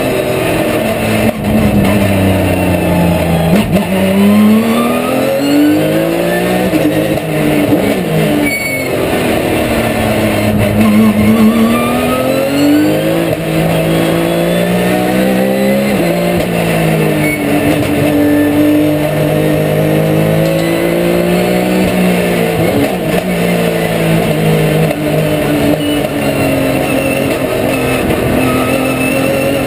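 Porsche 911 GT3 Cup race car's naturally aspirated flat-six, heard from inside the cockpit at racing speed. The revs climb and fall repeatedly as the car accelerates, changes gear and brakes for corners.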